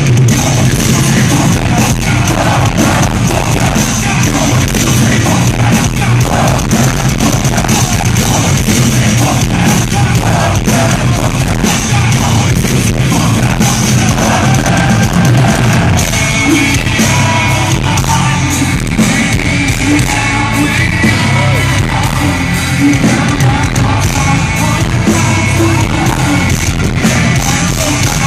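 Live heavy metal band playing loudly in an arena, with distorted guitars, pounding drums and a singing, yelling voice. The sound is overloaded and harsh, as recorded on a phone's microphone close to the loud PA.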